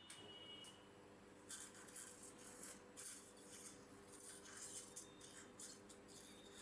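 Faint dental surgical suction drawing at the mouth in irregular short hissing bursts over a steady low hum.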